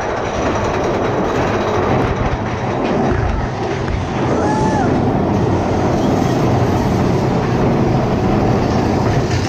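Mine-train roller coaster cars rattling and rumbling along the track at speed, a steady loud clatter that carries on as the train enters a dark tunnel.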